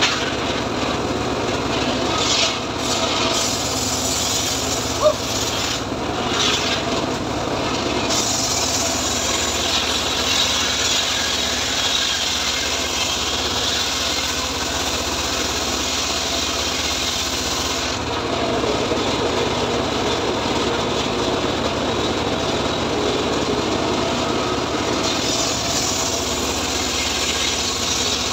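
Homemade engine-driven circular saw bench ripping a teak log lengthwise: a steady hissing cut over the drone of the engine. The cutting noise eases for several seconds past the middle and picks up again near the end.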